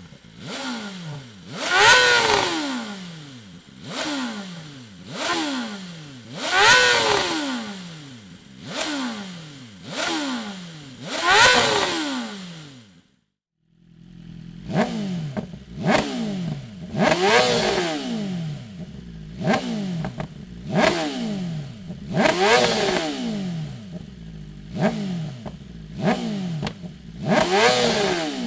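BMW M1000 RR inline-four revved through a Dominator aftermarket exhaust, in a series of throttle blips whose pitch climbs and falls back, three of them bigger and higher. After a short break about halfway, more blips follow with the engine idling steadily between them.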